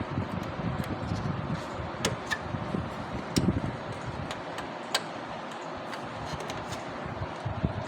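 HP LaserJet 3035/3005 printer running with a steady mechanical whir and a few sharp clicks.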